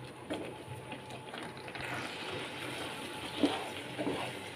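Spatula stirring and scraping a thick, moist mixture of chhana and sugar in a non-stick frying pan as it cooks down for kalakand, with a few light knocks of the spatula against the pan, the loudest about three and a half seconds in.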